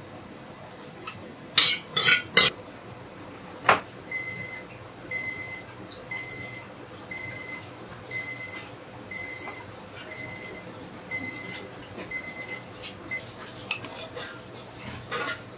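Electronic kitchen beeper sounding a long run of short, high beeps, about two a second, for roughly nine seconds. Dishes and metal utensils clatter a few times before the beeping and again near the end.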